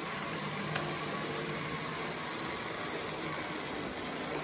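Märklin H0 model trains running on the layout: a steady rolling rumble of wheels on the track with a low electric motor hum.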